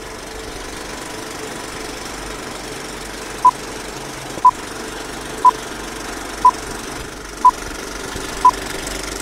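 Vintage film-leader countdown sound effect: a film projector's steady running whirr and rattle, with a short high beep once a second, six beeps from about three and a half seconds in, marking the countdown numbers.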